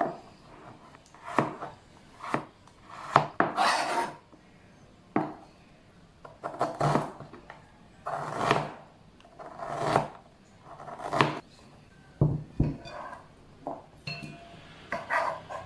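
Knife cutting vegetables on a wooden cutting board in slow, separate strokes, each a short scraping rub, about one every one to two seconds. A couple of sharper knocks come near the end.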